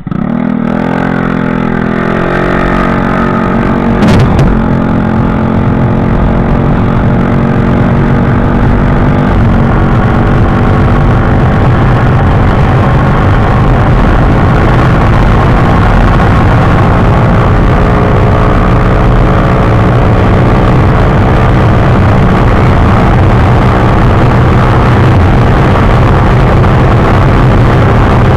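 TVS Ntorq 125 Race Edition scooter's single-cylinder engine accelerating hard from a standstill: the revs climb over the first couple of seconds, then hold steady as the CVT carries the scooter up to about 98 km/h. Wind rushing over the microphone builds up with the speed, and there is one sharp knock about four seconds in.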